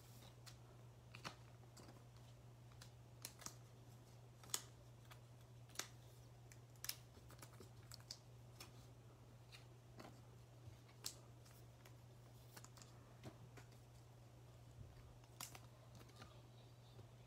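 Near silence with faint, scattered clicks and taps of Topps Chrome trading cards being handled and flipped through by hand, over a low steady hum.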